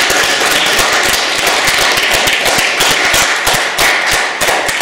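A group of people applauding: dense, steady clapping with some sharp, louder individual claps standing out.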